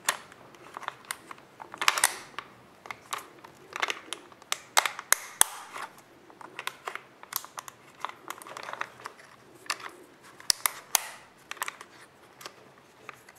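Irregular plastic and metal clicks and scrapes as a jigsaw blade is worked into the blade clamp of a Black & Decker Navigator SC500 saw, with a few longer scrapes among the sharp ticks. The saw's motor is not running.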